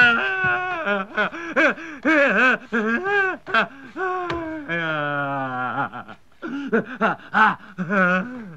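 A man's wordless, distressed vocal sounds: a run of short whimpering, moaning cries that rise and fall in pitch, with one longer falling wail about halfway through.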